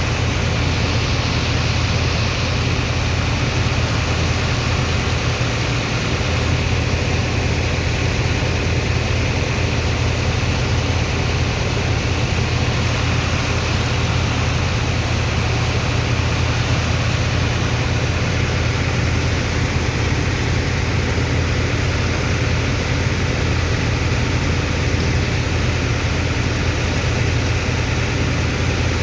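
Heavy engine of a sand dredger's pump running steadily at constant speed, a deep, even drone under a continuous rushing hiss.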